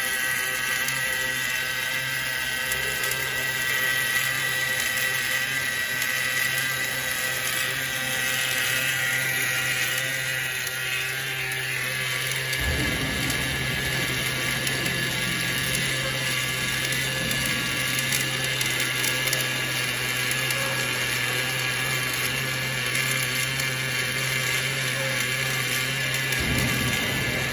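Automatic wire-fed welding machine arc-welding a rod end onto a hydraulic cylinder rod: a steady buzzing hiss of the arc with a machine whine. A deeper low rumble comes in about halfway through.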